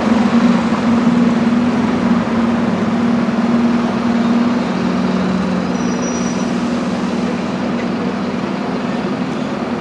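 Road traffic: a vehicle engine drones steadily under a constant wash of traffic noise.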